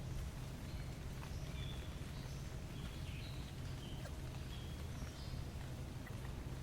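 Outdoor ambience: birds giving short, high chirps every second or so over a steady low rumble.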